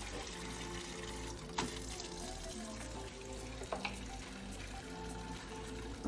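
Background music with long held notes over water being poured from a dipper and splashing onto concrete, with a few light knocks about one and a half seconds in and again near four seconds.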